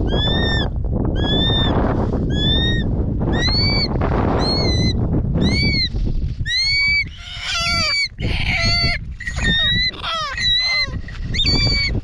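Short-toed snake eagle calling over and over, a rising-then-falling whistled cry about once a second. About halfway through, the calls become quicker and more varied. Low rumbling noise, like wind on the microphone, runs under the first half.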